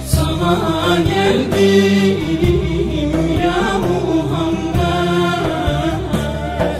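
Turkish ilahi (Islamic devotional song) music: a melodic line bending in pitch over a steady accompaniment.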